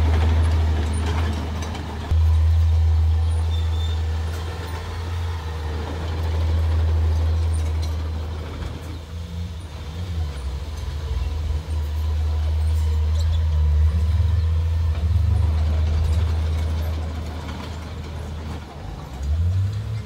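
Small crawler bulldozer's diesel engine running with a steady low drone. Its pitch wavers briefly around the middle and again near the end as it is worked.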